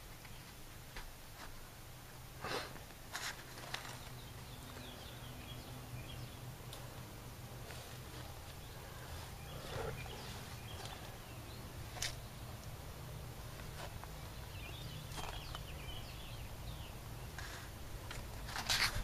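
Faint scattered clicks and rustles of handling inside a pickup truck's cab, over a steady low hum.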